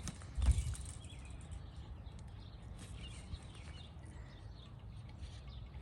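Wind buffeting the microphone as a steady low rumble, with small birds chirping in the background. A single thump about half a second in.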